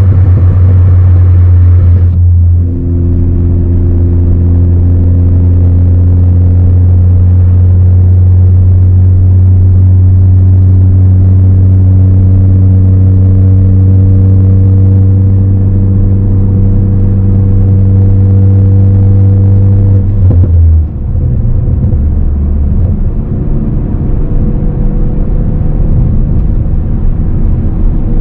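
2018 Ford Focus ST's turbocharged 2.0-litre four-cylinder running through a straight-piped exhaust, droning steadily while driving. The note dips briefly about two and a half seconds in, breaks off sharply about twenty-one seconds in, then rises and falls unevenly.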